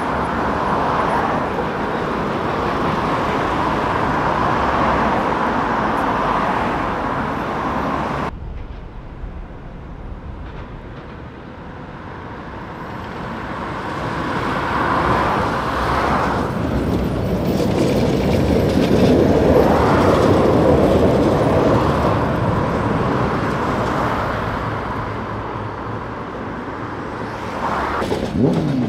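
Road traffic with a ČKD Tatra K2 articulated tram running along its street track. The sound cuts to a quieter scene about eight seconds in, then builds as another tram passes, loudest around twenty seconds in.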